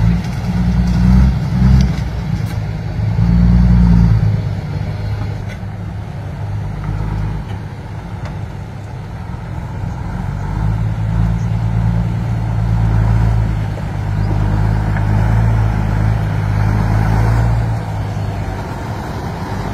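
Diesel engine of a loaded dump truck labouring as it pulls through mud, its low note rising and falling with the throttle, loudest about four seconds in and again through the second half.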